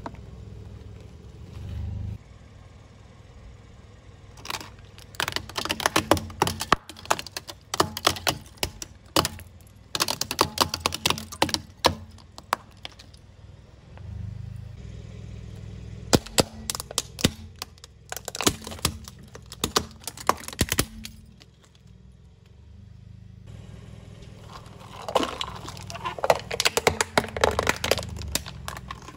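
A car tyre rolling over and crushing plastic toys and bottles: several bursts of rapid, sharp cracks and snaps of breaking plastic, with a low steady rumble from the car between the bursts.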